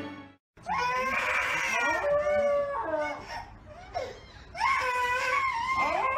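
A large husky-type dog howling in long, wavering calls, in two bouts with a short lull around the middle.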